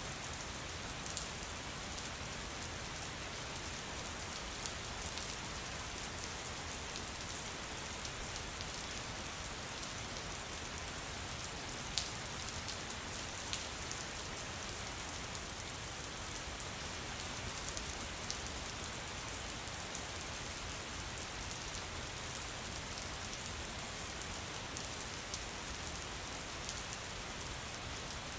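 Steady rain falling, an even hiss with occasional sharper drops ticking.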